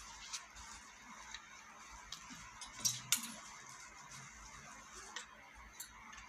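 Clothes hangers clicking and scraping along a clothing-rack rail as garments are handled, with two sharp clicks about three seconds in, over a faint steady hiss.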